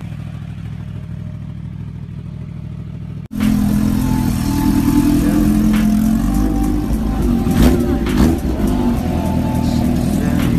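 A sport-bike engine idles with a steady low hum. About a third of the way in it gives way abruptly to the much louder supercharged inline-four of a Kawasaki H2 running at low revs as it rolls off, with two short sharp blips near the middle.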